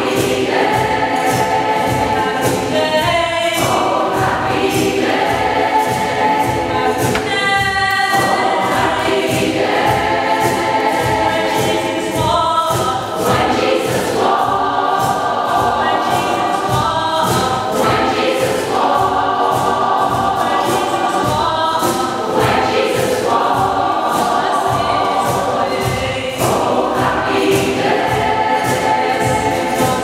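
Community choir singing in harmony, holding long chords that shift every second or two with brief breaths between phrases.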